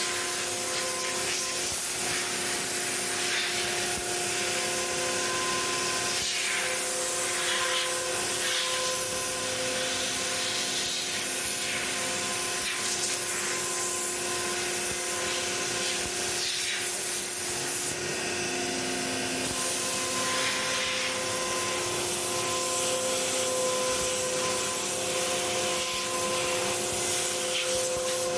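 ShopBot PRSalpha CNC router spindle cutting through a sheet of cabinet panels at 18,000 RPM and 500 inches per minute. It makes a steady whine of several tones over a hiss of cutting, with the tones shifting every few seconds as the cut changes direction.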